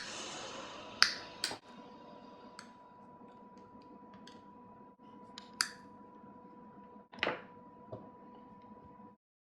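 Sharp clicks and taps of hard objects being handled, seven or so spread irregularly, over a faint steady hum; the sound cuts off suddenly about nine seconds in.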